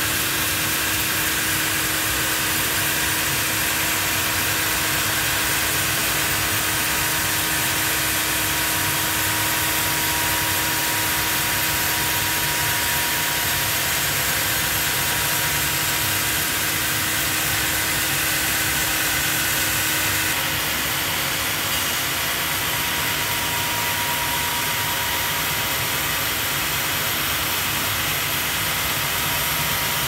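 Sawmill band saw running and cutting lengthwise through a huge Japanese cedar (sugi) log: a loud, steady mechanical rush. A steady hum drops out about two-thirds of the way through.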